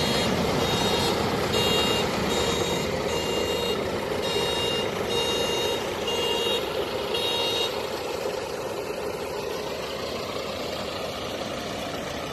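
Several farm tractors running as they drive past in a line, a steady engine noise. Over it a series of high beeps repeats, stopping a little past halfway.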